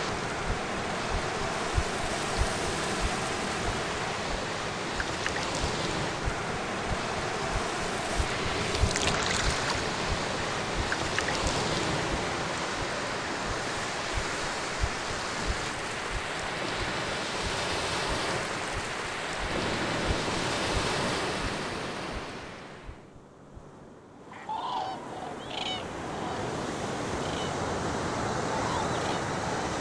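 Ocean surf washing over a rocky shore, a steady rush with wind buffeting the microphone in low thumps. About three quarters of the way through the sound drops away briefly, then returns with a few short chirps over it.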